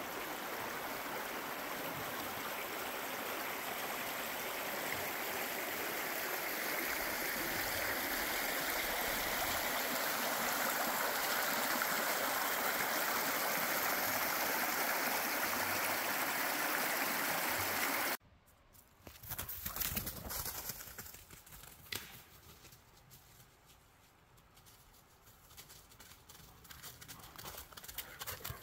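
Shallow, low river running over rocks in a riffle, a steady rush of water that grows slightly louder. About two-thirds of the way through it cuts off suddenly, leaving much quieter sound with a few scattered small knocks and rustles.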